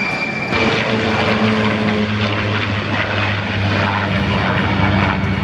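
de Havilland Vampire jet trainer's Goblin turbojet: a steady high whine, then, about half a second in, a louder broad roar with a steady low hum beneath as it passes low.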